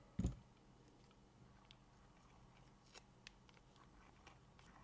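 A dull thump about a quarter second in, then faint scattered clicks and crinkles of adhesive tape being handled and peeled off a watch's removed metal caseback.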